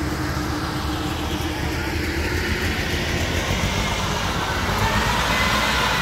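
A heavy machine's engine running steadily. Near the end it grows a little louder and a steady whine comes in over it.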